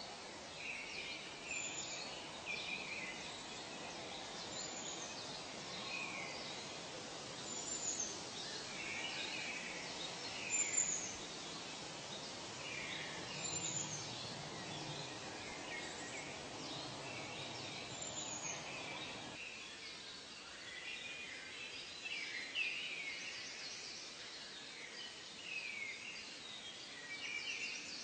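A chorus of birds calling: many short chirps and whistles, with a high call that falls in pitch repeated every few seconds. Underneath runs a steady low hiss that cuts off suddenly about two-thirds of the way through.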